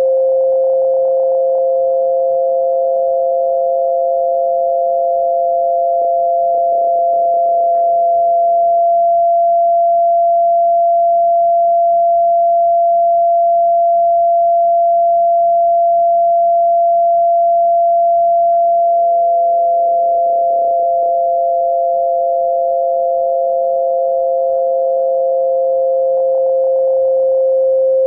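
Two steady electronic pure tones for tinnitus masking, one lower and one higher in pitch. The lower tone fades out about nine seconds in and fades back in about nineteen seconds in, while the higher tone holds steady.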